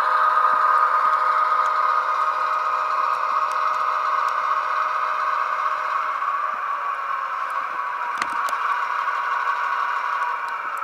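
Model diesel locomotive's onboard sound system playing a steady diesel engine drone through its small speaker, with light clicking from the model running on the track. The engine note eases down a little in pitch and level as the locomotive slows to a stop.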